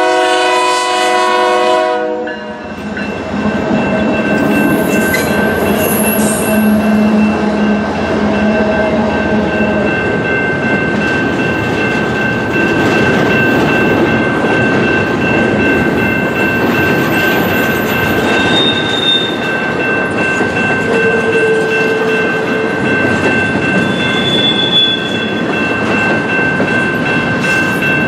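Freight train horn on a Canadian Pacific GE diesel locomotive, sounding as the lead unit passes close by and cutting off about two seconds in. The locomotives and a long string of double-stack intermodal container cars then roll past with a steady, loud rumble of wheels on rail.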